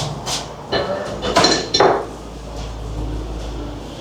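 Hard small objects knocking together: several light clinks in the first two seconds, two of them with a short ring.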